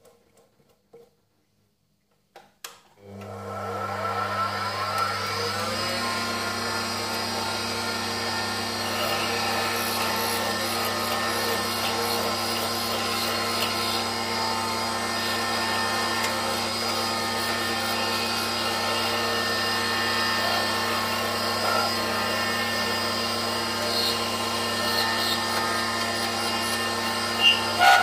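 Benchtop mini metal lathe switched on with a click about three seconds in. Its motor spins up over a couple of seconds, then runs steadily with a hum and a higher whine. A couple of sharp clicks come just before the end.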